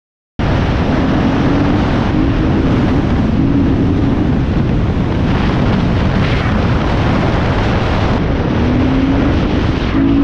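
Enduro dirt bike engine running on the move, its note wavering up and down, under heavy wind noise on the microphone. The sound cuts in abruptly about half a second in.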